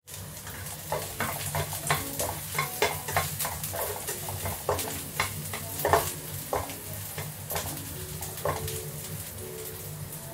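Food sizzling in oil in a nonstick wok while a spatula stirs it, knocking and scraping against the pan. The knocks come thick and fast for the first six seconds or so, then thin out. A steady low hum runs underneath.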